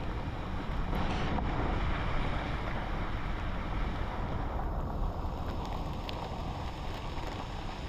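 Steady rumble and hiss inside a car driving slowly along a wet dirt road in rain. About halfway through, the higher hiss drops away, leaving the low rumble and a few faint ticks.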